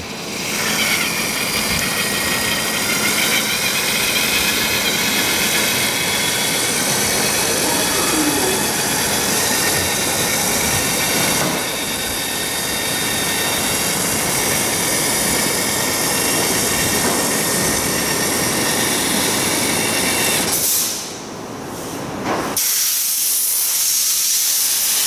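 Pneumatic urethane gun hissing steadily with escaping air as it lays a continuous bead of urethane sealant for a windshield. The hiss stops for about two seconds near the end, then starts again.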